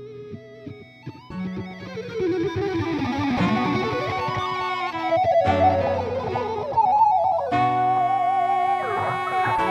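Background music: an electric guitar instrumental that grows fuller about a second in, with a lead line that slides downward around three seconds in and later wavers on high held notes.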